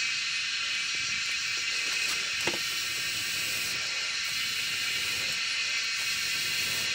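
A steady high-pitched hiss, with a single light knock about two and a half seconds in.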